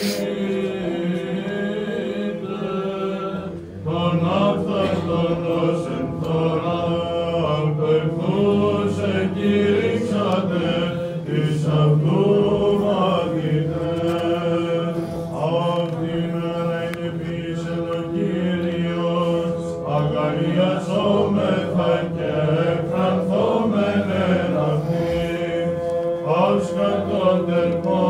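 Greek Orthodox Byzantine chant: voices singing a winding melodic line over a steadily held drone note (the ison). There is a short break about four seconds in, after which the singing comes back fuller.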